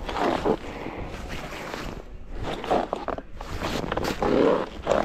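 Scraping and rustling in snow with swishing clothing, in irregular swells and a few sharper scuffs, as someone shuffles and settles onto a sled or skis at the top of a snow run.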